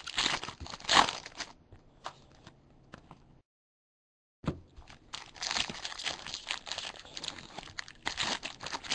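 Crinkling and crackling of foil trading-card pack wrappers as the packs are opened and handled, with the sound cutting out completely for about a second midway.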